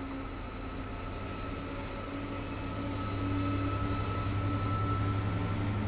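Diesel train engine running with a steady low hum and droning tones, getting louder over the first three seconds or so and then holding.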